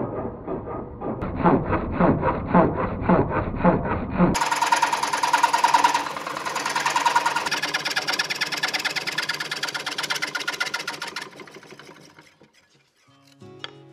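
Foot-powered treadle scroll saw running, its blade chattering through plywood at about four strokes a second. About four seconds in the sound turns brighter and steadier, then fades near the end.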